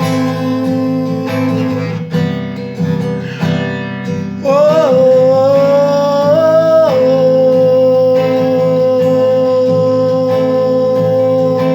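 Instrumental break of a worship song: strummed acoustic guitar with a strong held lead note that comes in about four seconds in, scooping up in pitch, shifting once, then holding one long steady note.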